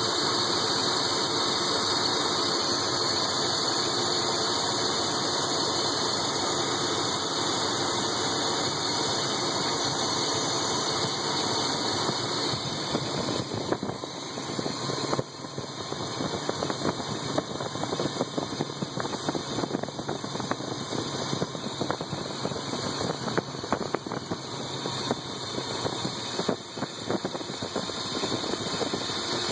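BMW E36 325i's 2.5-litre straight-six idling while being checked for vacuum leaks. It is steady at first and turns choppier and more uneven about halfway through.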